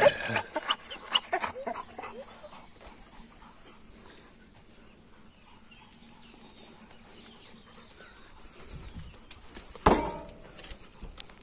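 A dog whining and yelping in short calls over the first couple of seconds, then quiet. About ten seconds in, a single sharp metal clank from a shed door's sliding bolt.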